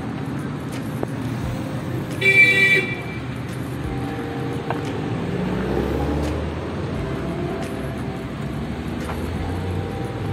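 Street traffic running steadily, with a vehicle horn sounding one short toot just over two seconds in. A low rumble of a vehicle swells and fades around the middle.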